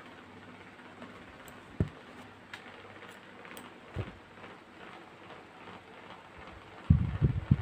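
Handling noise from stitching work on a canvas frame: faint rustling with a couple of soft knocks, then a quick run of loud, low thumps near the end.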